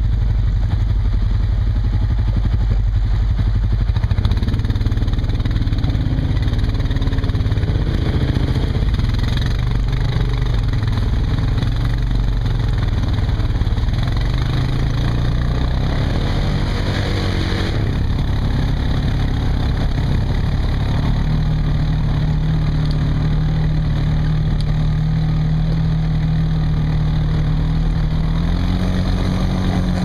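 Engine of a quad ATV fitted with rubber track units, running steadily as it pulls through a shallow creek and up the bank. Its pitch shifts with the throttle and rises near the end.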